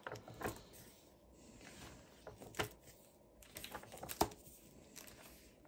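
Pages of a brand-new hardcover comic book being turned; the fresh, never-flipped paper and binding give faint, crinkly crackles. Two sharper snaps stand out, about two and a half and about four seconds in.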